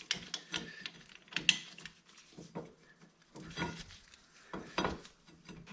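Light clicks and knocks of new brake pads being fitted into a brake caliper, irregular, with a few louder knocks, over a faint steady hum.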